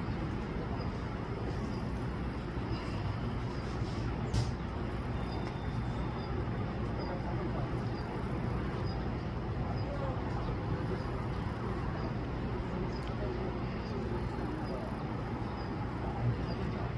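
Steady low background rumble with an insect calling overhead: very high-pitched bursts of about a second each, repeating roughly every one and a half to two seconds.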